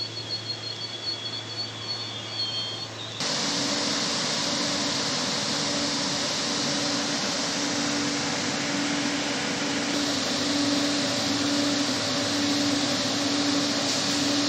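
Coradia Stream 'Pop' electric train at a station platform. For about three seconds it runs past with a wavering high whine over a low hum and uneven knocks. Then, abruptly, comes a steady, louder rushing noise with a low hum, like the train's fans and air-conditioning equipment.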